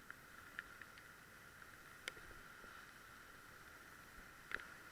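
Near silence: a faint steady hiss with a few faint, brief clicks.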